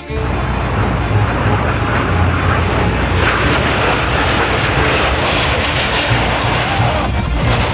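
Airplane engine noise, a loud steady rush that cuts in abruptly and holds throughout.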